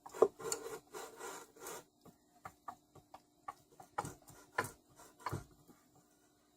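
Scraping and rubbing for about two seconds, then a string of light, separate clicks and knocks: parts of an old Tecumseh small engine being handled and worked loose during a teardown with the side cover off.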